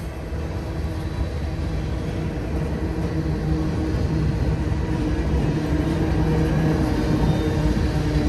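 Mixed freight train rolling by, its cars making a steady low rumble on the rails that grows a little louder over the last few seconds.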